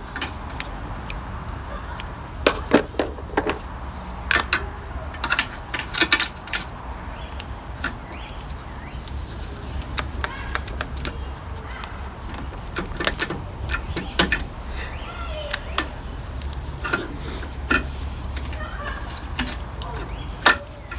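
Scattered clicks, taps and light rattles of hands handling double-sided alien tape and fitting it around a car battery and its hold-down. They come at irregular times over a steady low rumble.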